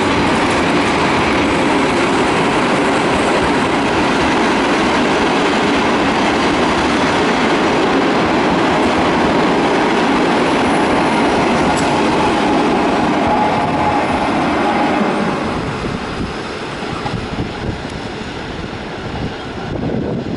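Passenger carriages of a departing train rolling past at low speed, wheels clattering over the rails with a faint squealing tone now and then. About three quarters of the way through the sound drops and becomes more uneven as the train moves away.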